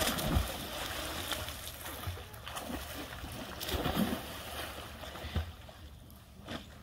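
A person diving off a diving board into a pond with a splash at the very start, followed by water churning and sloshing as swimmers move about, with another surge of splashing about four seconds in.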